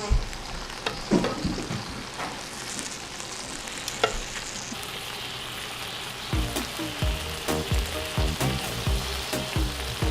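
Meat sizzling and frying on a home grill, a steady hiss with a few sharp clicks. Background music with a steady beat comes in about six seconds in.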